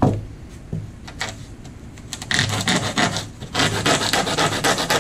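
Hand sanding of a cured fiberglass laminate edge with 120-grit sandpaper: quick back-and-forth rubbing strokes that start about two seconds in and run on steadily. A single knock is heard at the very start, followed by a few lighter touches.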